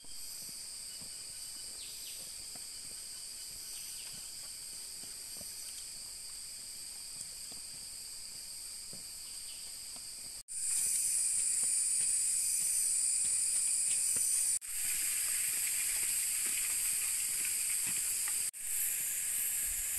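Rainforest insect chorus: a steady, high-pitched buzzing of many insects at several pitches at once. It gets louder about ten seconds in and cuts out for an instant a few times.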